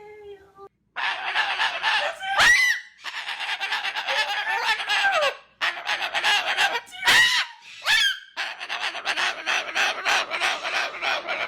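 Birds squawking and honking in long harsh stretches, with several sharp rising-and-falling calls cutting through.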